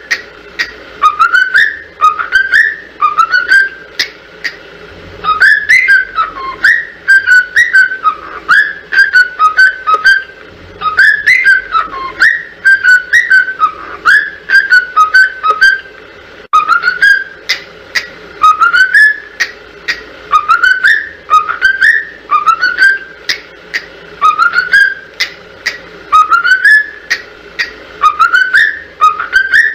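Cockatiel whistling a short rising note over and over, about once a second, with a busier run of varied, quicker whistled notes in the middle.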